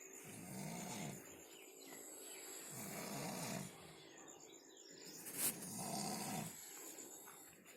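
Snoring in deep sleep: three low snores, each under a second long and about three seconds apart. A single sharp click comes about five and a half seconds in.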